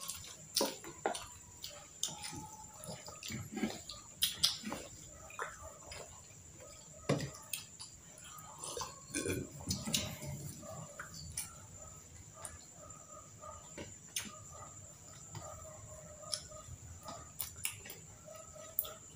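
People eating fried street food such as fish balls and kikiam: chewing and wet mouth smacks, with irregular sharp clicks of forks and sips from a glass.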